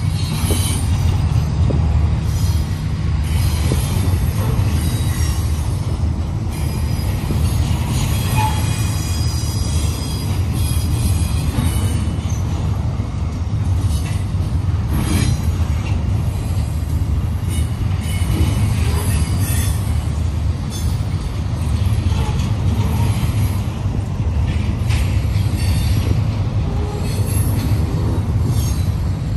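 CSX double-stack intermodal container cars rolling past: a steady low rumble of steel wheels on rail, with a stretch of high-pitched wheel squeal about a third of the way in and scattered knocks and clanks from the cars.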